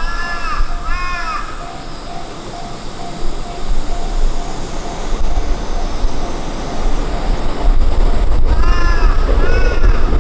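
Japanese level-crossing warning bell ringing with an evenly repeating electronic tone, while a train's low rumble grows loud from about three quarters of the way in. Short runs of harsh calls, like crows cawing, come at the start and again near the end.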